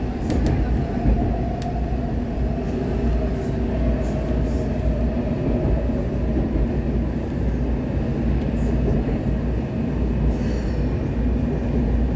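Inside a WMATA 2000-series Metrorail car running at speed: a steady low rumble of wheels and running gear on the rails, with a faint whine that sinks slightly in pitch over the first few seconds.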